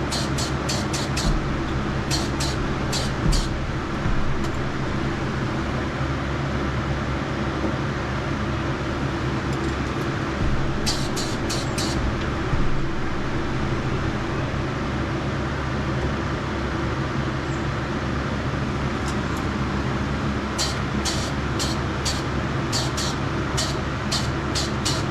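Spray booth exhaust fan running with a steady drone. Over it come groups of short, sharp, hissy pulses, several a second: at the start, briefly around the middle, and again through the last few seconds.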